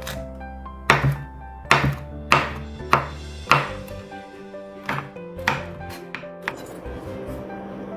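Kitchen knife chopping on a wooden cutting board, about nine separate strokes as it cuts through shishito peppers and slices red chilies, stopping about six and a half seconds in. Background music plays throughout.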